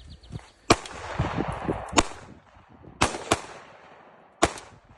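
Five AR-15 rifle shots at uneven intervals, two of them in quick succession, each a sharp crack. The first rolls on in echo for about a second.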